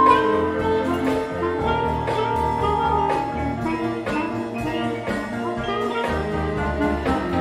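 Small jazz-style band playing an upbeat tune: clarinet, mallet keyboard percussion, drum kit and electric guitar over a steady, repeating bass line, with a clarinet-like note held for about a second and a half near the middle.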